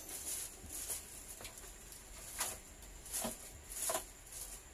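Clear plastic wrapping crinkling and rustling as it is pulled off a boxed welding machine, in a string of short crackles, the loudest three in the second half.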